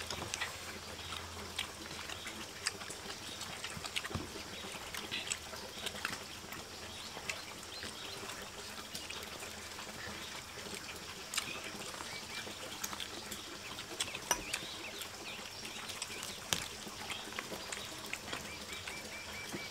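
Scattered small clicks and taps over a steady faint outdoor background, with a bird chirping in short runs of quick notes, once near the middle and again at the end.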